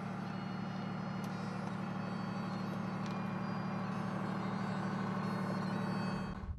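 ASLAV wheeled armoured vehicle's diesel engine running steadily with a low drone as the vehicle rolls slowly past. The sound cuts off abruptly near the end.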